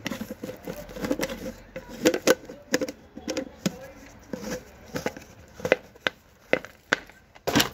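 Irregular clicks and knocks, about one or two a second, from a plastic jar's screw-on lid being twisted and handled.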